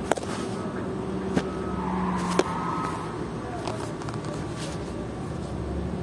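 A steady low machine hum with three sharp knocks in the first two and a half seconds, the third the loudest.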